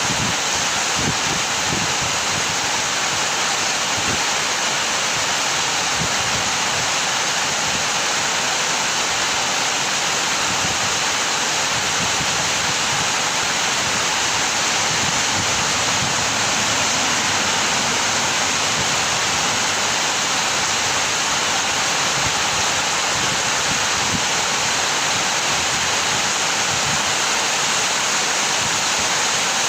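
Heavy rain pouring steadily, a constant, even hiss that does not let up.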